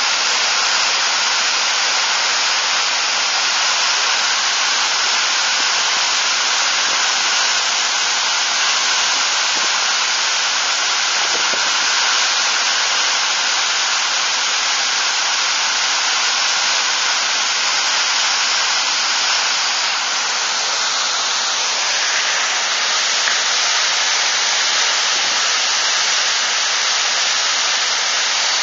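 Water gushing from the Hume Dam spillway gates and plunging into the river below: a loud, steady rush of falling water.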